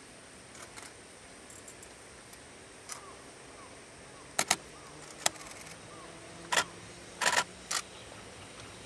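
Distant electric-locomotive-hauled train approaching: a faint low hum and an irregular run of sharp clacks from the wheels passing over rail joints, thickening from about halfway through.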